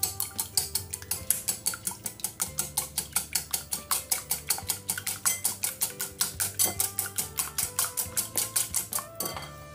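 Wire whisk beating two eggs in a glass bowl, its wires clicking against the glass about five times a second, stopping near the end.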